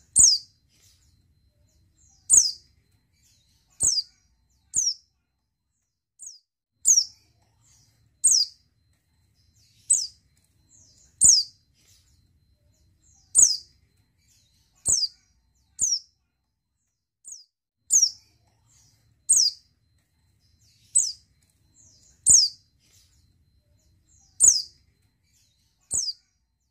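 Female white-eye (pleci) in breeding condition giving short, high chirps that drop in pitch, one about every one to two seconds, sometimes two close together.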